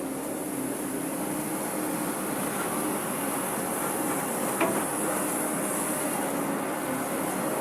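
Excavator's diesel engine running steadily, with one sharp knock about four and a half seconds in.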